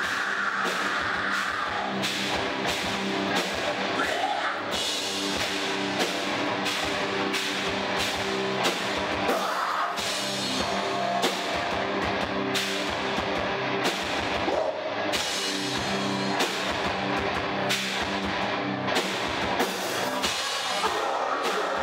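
A live rock band playing loud and heavy: a drum kit with frequent cymbal crashes under electric guitars and bass.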